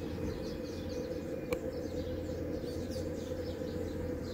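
Small birds chirping repeatedly over a steady low background hum, with one sharp click about a second and a half in.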